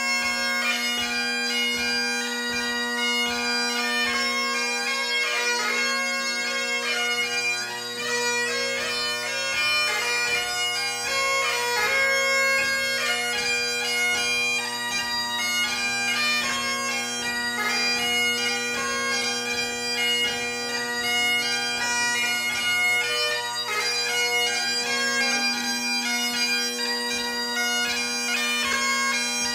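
Great Highland bagpipe played solo: a chanter melody moving quickly from note to note over the steady hum of the drones.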